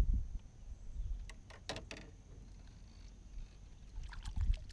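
A hooked catfish splashing at the water's surface beside a small boat as it is reeled in. Short splashes come in a cluster about a second and a half in and again near the end, over a low rumble of the boat and handling. A knock against the boat comes at the very start.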